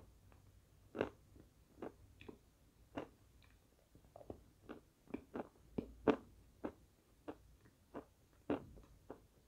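Close-miked crunching of small pieces of edible chalk bitten between the teeth, crisp short crunches at an irregular pace of roughly two a second, the loudest about six seconds in.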